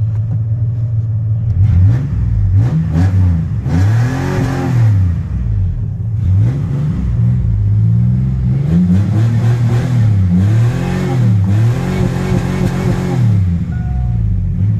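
Chevy pickup's 4.3 V6 engine, heard from inside the cab, idling and then revved over and over in quick blips, its pitch rising and falling repeatedly before it settles back to idle near the end.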